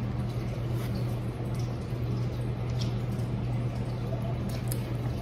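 A steady low hum under faint, small wet mouth sounds and a few soft clicks: snack chewing and a child sipping a drink from a glass jar mug.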